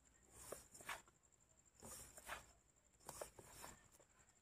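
Hands mixing a rice bran fishing bait mix in a bowl: faint, intermittent rubbing and scraping in a few short bouts.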